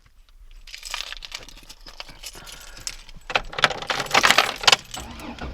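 Close handling noise: quick small clicks and light rattles, thickest and loudest a little past the middle.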